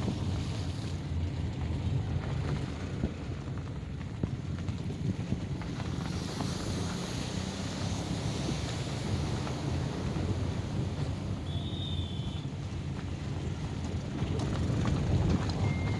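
Ocean waves surging and breaking, with wind rumbling on the microphone; the surf swells about six seconds in and grows louder again near the end.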